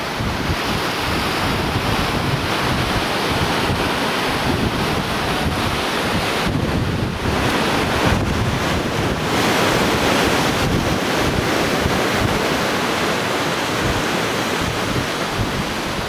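Sea surf washing and breaking against a rocky shore, a steady rushing hiss, with wind buffeting the microphone as a gusty low rumble.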